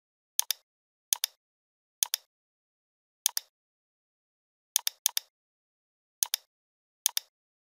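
Computer mouse clicking eight times at uneven intervals, each click a sharp press-and-release pair of snaps.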